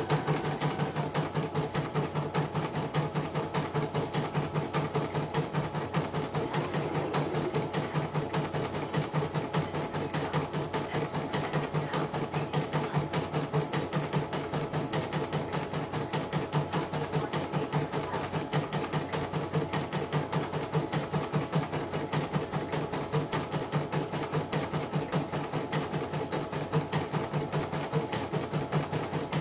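CNY portable computerised embroidery machine stitching steadily, its needle mechanism running in a fast, even rhythm.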